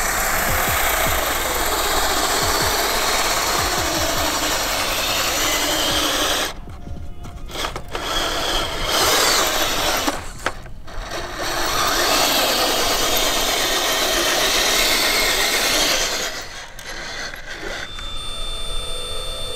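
Scale RC pickup truck towing a trailer over gravel: its small electric motor and gear drive whir while the tyres grind on the stones. The sound drops away briefly about six and a half seconds in, again around ten seconds, and near the end.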